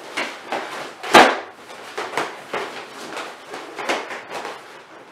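Inflated latex balloons rubbing and brushing against one another as hands work among them to tie a 260 twisting balloon to the centre of the cluster: a run of short, uneven rubbing strokes, one much louder about a second in.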